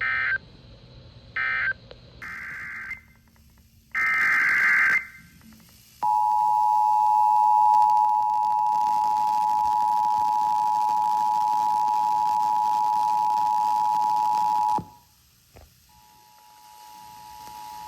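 Emergency Alert System digital data bursts, the shrill warbling SAME tones, sound four times in the first five seconds. The two-tone EAS attention signal (853 and 960 Hz) follows, held steady for about nine seconds. It cuts off abruptly and starts again near the end.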